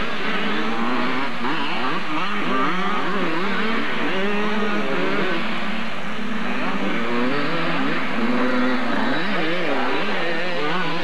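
Several 80cc two-stroke motocross bikes racing, their engines revving up and down at different pitches and overlapping in a continuous drone.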